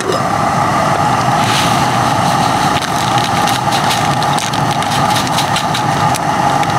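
Camping canister gas stove burning loudly and steadily under an aluminium kettle. Crinkling of a foil tea packet runs through the middle and later part as tea is tipped into the kettle.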